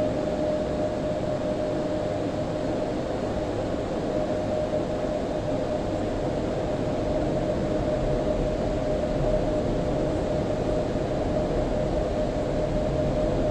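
Automatic car wash blow dryers running, heard from inside the car: a steady rush of air with a constant mid-pitched hum.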